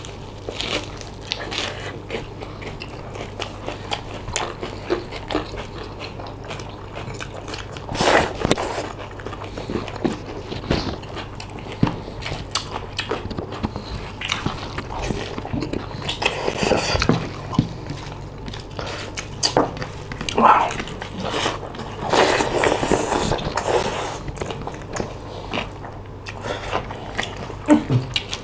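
Close-up eating sounds of two people: biting and chewing mouthfuls of mutton curry, rice and crisp lettuce leaves, with irregular wet mouth noises and small clicks. A low steady hum runs underneath.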